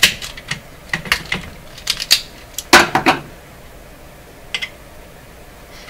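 A hand wire-trimming tool clicking and snipping at the wire leads inside a metal tube-radio chassis: a quick run of sharp metallic clicks, the loudest about three seconds in, then two light clicks later on.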